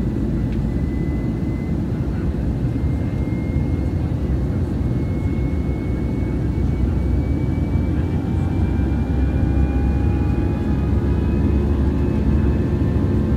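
Airbus A319 cabin noise heard from a window seat over the wing: a steady low rumble of engines and airflow, with faint engine whine tones slowly rising in pitch and the noise growing a little louder in the second half.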